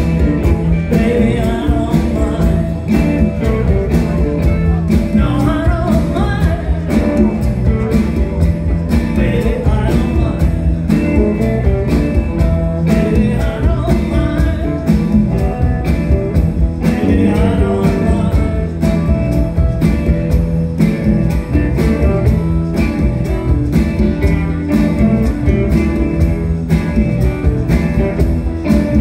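Live blues-rock band playing: electric guitars, bass, keyboard and drums with a steady beat, and singing over the top.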